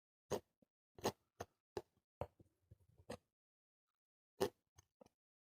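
Quiet, irregular taps and clicks of a brush working oil paint on a palette as the colours are mixed.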